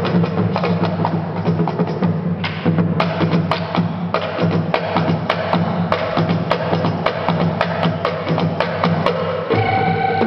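Live band music with fast, sharp percussion hits over held bass notes; about nine and a half seconds in the chord changes and a higher held note comes in.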